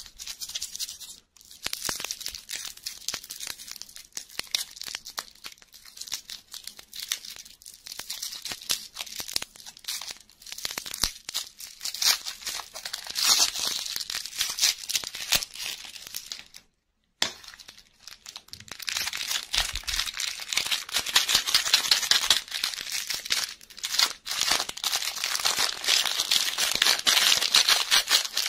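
Cellophane lollipop wrapper and a clear plastic toy bag crinkling and tearing as they are unwrapped by hand, a dense run of crackles with a short silent break past the middle.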